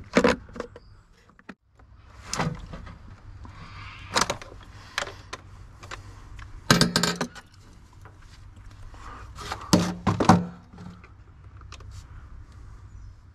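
Irregular knocks and clatter of equipment being handled, about half a dozen sharp strikes spread out, over a faint low steady hum; the loudest come about seven and ten seconds in.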